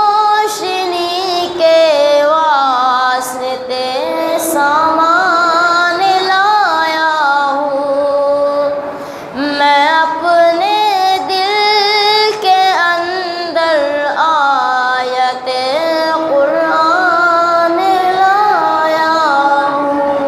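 A woman singing a naat, an Urdu devotional song, in long drawn-out phrases of wavering, gliding held notes, pausing for breath twice.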